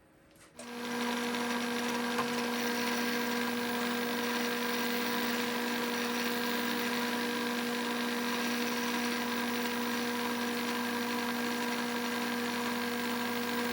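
Bridgeport milling machine starting up about half a second in and running steadily with an even hum, its 3/8 inch two-flute end mill spinning for a light scratch cut.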